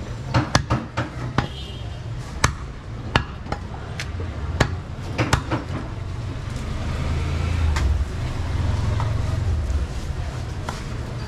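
Butcher's cleaver chopping goat meat on a wooden log block: irregular sharp strikes, several in quick succession near the start, over a steady low rumble that swells past the middle.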